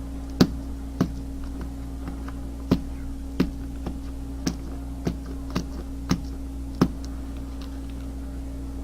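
Sharp clicks of flint being knapped, small flakes snapping off one at a time, as the sharp edge of a flint saw blade is worked down into a finger groove. There are about ten irregularly spaced clicks, stopping about seven seconds in, over a steady low hum.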